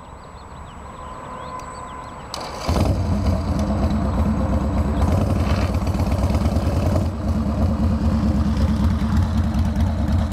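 A Harley-Davidson Sportster's V-twin engine starts about two and a half seconds in, then runs loudly and steadily.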